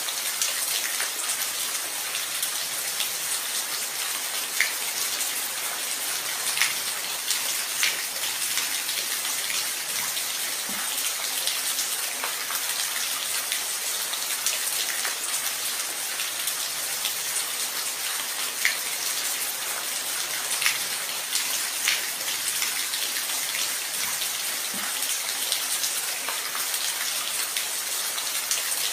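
Steady rain, a dense even hiss of falling drops, with a few louder single drops ticking now and then.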